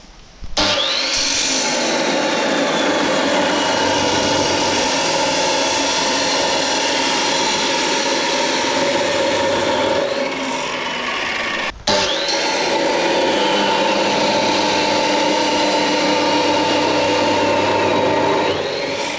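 Abrasive cut-off saw (chop saw) spinning up with a rising whine, then grinding steadily through steel pipe. The cut runs twice, with a brief break just before the middle.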